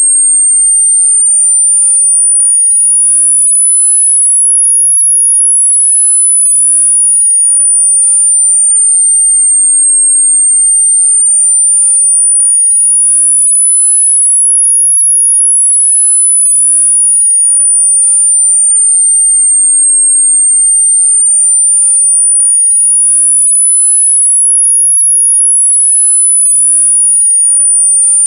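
Synthetic pure sine tone for tinnitus masking, very high-pitched and loud, gliding slowly up and down in small steps. It makes about three full rises and falls, one every ten seconds or so.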